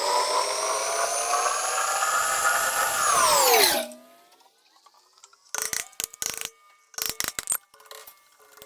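A machine tool's motor whining at speed, then winding down to a stop about four seconds in. A few short clicking and rattling sounds follow.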